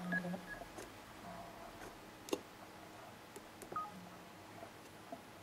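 Samsung Omnia 2 smartphone giving short, soft key-feedback beeps as its touchscreen and keys are pressed: one near the start and a shorter, lower one a little before the end. Light taps on the phone fall between them, the sharpest about two seconds in.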